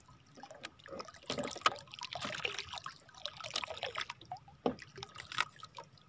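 Water trickling and dripping around a small wooden outrigger canoe, with scattered small clicks and knocks from hands working a fish off a handline hook.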